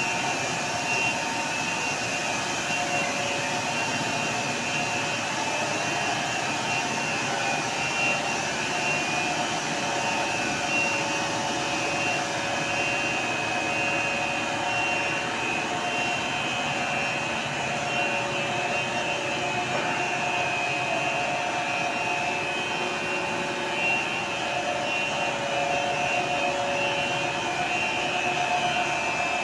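Stretch film machines running steadily: a constant machine noise with several steady whining tones held throughout.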